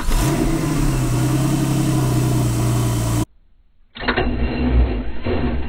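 Porsche 997 Carrera S 3.8-litre flat-six just after starting, revs flaring and then settling to a fast idle; the sound cuts off suddenly about three seconds in. After a short silence, a second start-up of the same engine begins.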